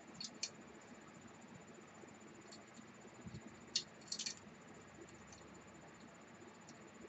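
A few faint, sharp clicks and light rattles of a heat-pipe CPU cooler and its mounting hardware being handled and fitted together by hand, the loudest click about four seconds in.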